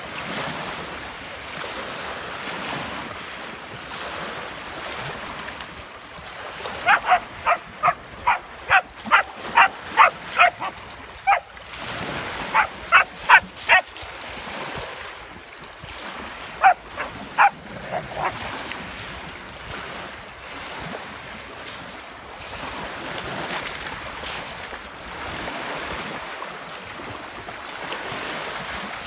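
A dog barking in three quick runs of sharp barks, about two a second, the first and longest starting about a quarter of the way in, over the steady wash of small lake waves lapping at the shore.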